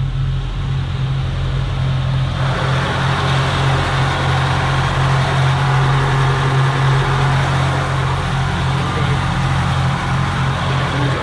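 A yacht's diesel generator running steadily, with a strong deep hum; its rushing mechanical noise grows louder about two seconds in and holds there.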